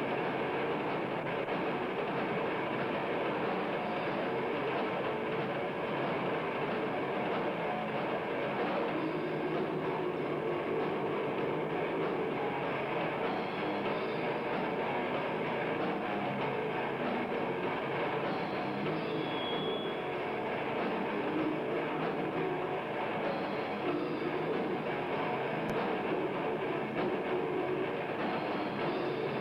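Death metal band playing live, with distorted electric guitar and a drum kit going together in a dense, unbroken wall of sound.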